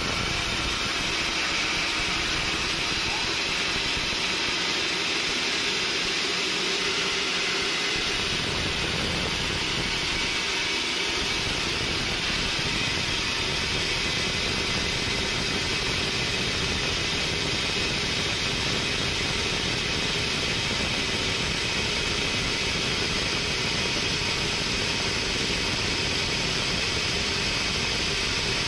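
Horizontal band sawmill running steadily, its band blade sawing through a large log: an even, unbroken machine noise with a hiss.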